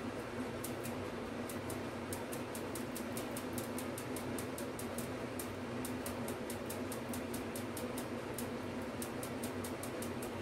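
A spoon stirring thickened epoxy resin in a small cup: quick, irregular light ticks as it scrapes the sides. Under it runs a steady low hum.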